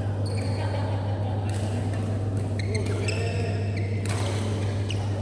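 Indoor badminton hall sound: a steady low hum throughout, with several short high-pitched squeaks of court shoes on the synthetic mat and a few sharp clicks.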